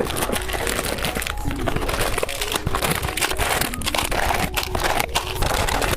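Plastic candy wrappers crinkling and crackling as they are handled and opened, a dense run of small crackles.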